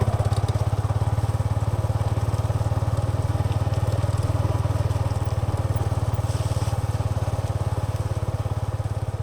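Yamaha XSR 155's single-cylinder four-stroke engine running steadily through its exhaust, a fast even beat of firing pulses that holds at one engine speed.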